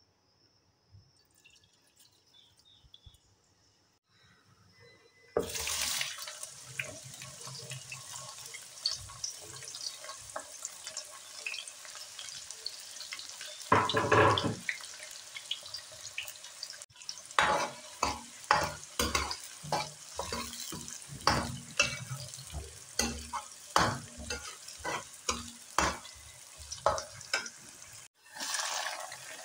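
Chopped onions frying in hot oil in a metal kadhai: a sizzle starts suddenly about five seconds in, with a loud flare about halfway, and from then on many sharp clinks and scrapes of a steel ladle stirring against the pan.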